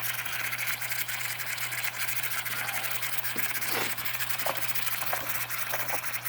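Steady hiss of steam escaping from the Empire B42 twin-boiler toy steam engine as it is coaxed to turn over, with a steady low hum beneath and a few faint clicks around the middle. The engine is stiff and not yet running, only nearly catching.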